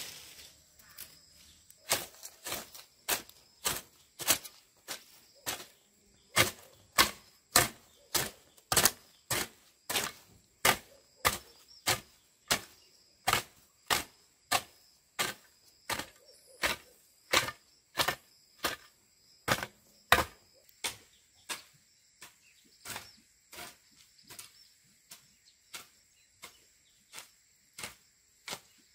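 Metal hoe blade chopping into dry soil and weeds, striking in an even rhythm of about one and a half strokes a second. The strikes start about two seconds in and grow fainter in the last third.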